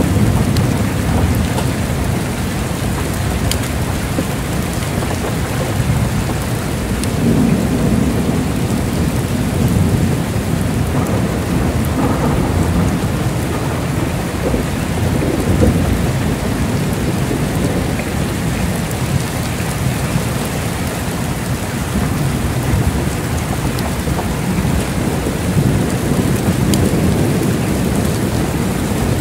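Heavy rain pouring steadily, under a low rolling rumble of thunder that swells and fades several times.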